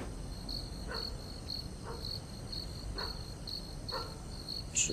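Crickets chirping steadily, about two short high chirps a second, with a faint low hum and a fainter short sound about once a second underneath.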